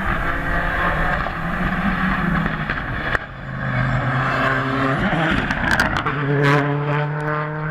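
Hillclimb race car's engine revving hard under acceleration, its pitch climbing and dropping back through gear changes, with a sudden break about three seconds in.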